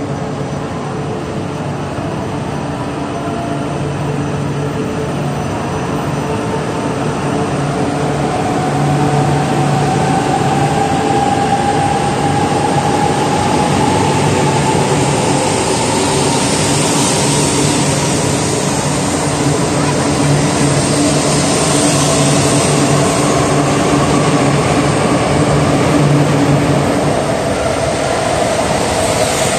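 E4 series double-decker Shinkansen pulling out of a station and gathering speed. Its traction motors give a whine that rises in pitch twice, over a steady hum. The running noise grows louder as the train speeds up.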